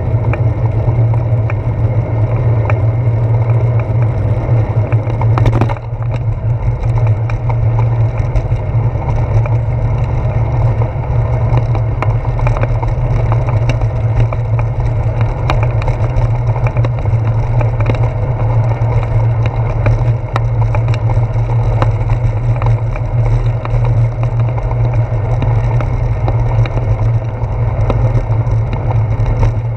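Bicycle rolling over damp asphalt and brick-paved street, heard through a handlebar-mounted camera: a steady low rumble of tyre and road vibration with many small rattling knocks as the bars shake over the bumps. There is a brief dip and a sharp click about six seconds in.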